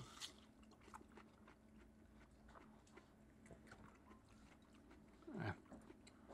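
Faint chewing of juicy watermelon chunks, with scattered soft mouth clicks, and a brief low vocal murmur near the end.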